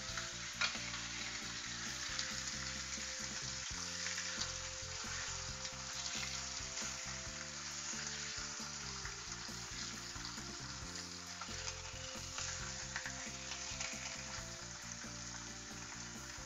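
Beef steaks sizzling steadily in a hot frying pan, with a few light clicks of metal tongs against the pan as the meat is turned.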